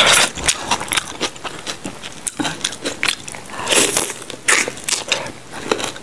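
Close-miked mukbang eating: a steady run of wet chewing and mouth clicks, then, about four seconds in, a bite into a crispy fried chicken drumstick with a burst of crunching.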